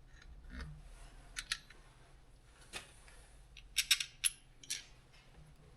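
Scattered sharp metallic clicks and taps, with a quick cluster of several about four seconds in, from hand work on a Bobcat skid steer's door latch while the worn latch is being replaced.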